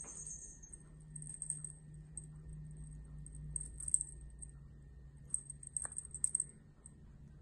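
Small bell on a cat wand toy jingling in short, irregular bursts as it is batted about.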